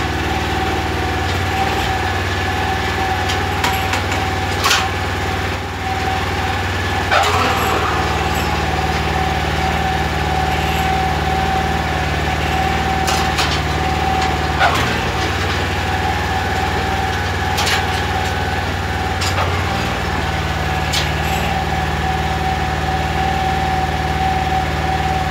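Small petrol engine of a walk-behind tractor (motoblock) running steadily at idle, with a few sharp knocks and clicks scattered over it.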